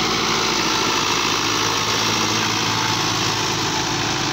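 New Holland 640 tractor's diesel engine running steadily under load while it pulls a nine-tine cultivator through the soil.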